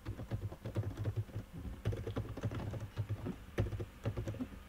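Typing on a computer keyboard: a quick, uneven run of key clicks, with one louder key strike about three and a half seconds in.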